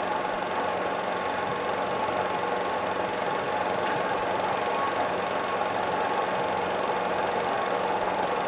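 A machine running with a steady whirr and hum, unchanging throughout, with a faint high whine over it.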